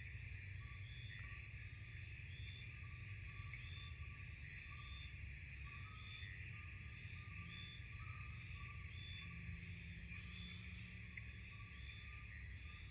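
Nocturnal rainforest insect chorus: crickets and other insects trilling steadily at several high pitches, with short chirps repeating every second or so lower down. A low steady rumble sits underneath.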